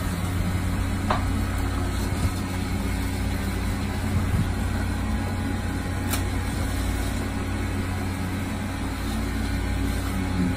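A fishing boat's engine running steadily, a continuous low drone, with a couple of faint clicks from work at the rail.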